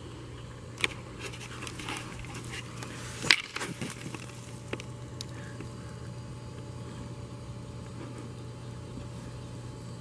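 Camera handling and dry leaves crunching as the camera is set down in leaf litter: a few sharp knocks and rustles in the first four seconds, the loudest about three seconds in, then only a steady low background hum.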